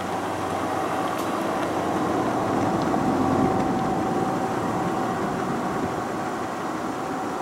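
Diesel-electric freight locomotives, CSX GE ET44AH units with V12 four-stroke engines, running steadily as the train approaches, with a steady whine over the engine sound that fades about five seconds in.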